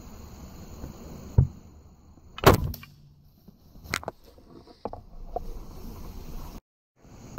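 Knocks, scrapes and rustling of a cell phone being picked up and moved by hand, the loudest knock about two and a half seconds in. Faint crickets chirp before the handling starts, and the sound cuts out briefly near the end.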